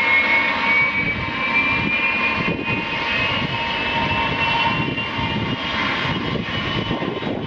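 Tupolev Tu-154's three rear-mounted jet engines running at low power as the airliner taxis: a steady rush with a high whine that rises slightly in pitch.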